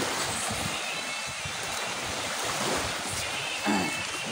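Small sea waves washing and lapping onto the shore in a steady rush at high tide.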